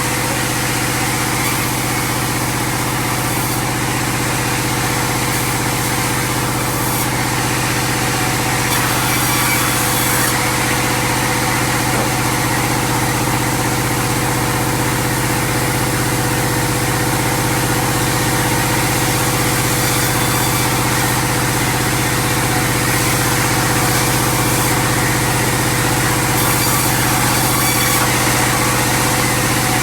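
An engine running steadily at one constant pitch, with no revving or change in load.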